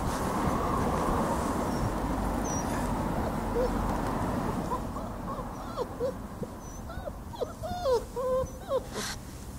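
Litter of German shepherd puppies squeaking while they nurse. Many short, high little calls bend up and down in pitch, growing more frequent in the second half and thickest near the end, after a steady rushing noise in the first few seconds.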